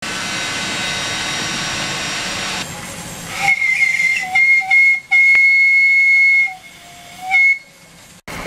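A steady hiss, then a miniature steam traction engine's steam whistle blown in several short toots, one long blast of about a second and a half, and a final short toot. The whistle is high-pitched.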